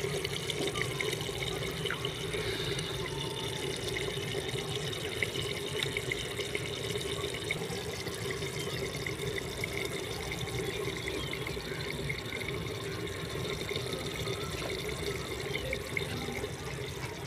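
Beef curry simmering in a clay pot on a wood-fired stove, a steady bubbling of the liquid.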